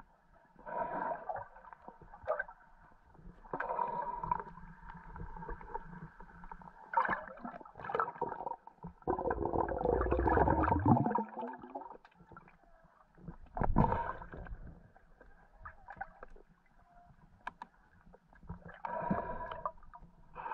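Underwater ambience: irregular muffled gurgling and bubbling, with a longer, louder gush of bubbles about halfway through and a short burst soon after.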